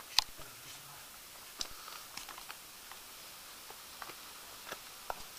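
Scattered sharp clicks, taps and scuffs of someone clambering over rough limestone rock, irregular and unevenly spaced, the loudest a fraction of a second in, over a faint steady hiss.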